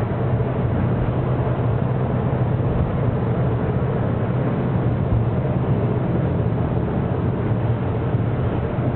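Steady drone of a moving bus's engine and tyre noise, heard from inside the bus at an even speed.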